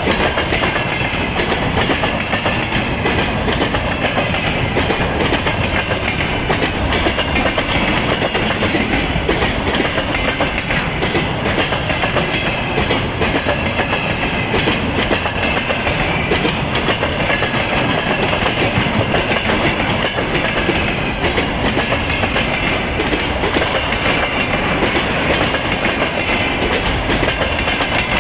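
Empty flat and timber wagons of a freight train rolling past close by. Their wheels clack over the rail joints in a loud, steady rattle.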